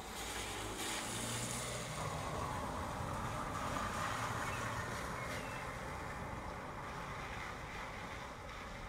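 Steady rain with a car driving past on the wet street. Its tyre hiss swells from about a second in, peaks midway and fades toward the end.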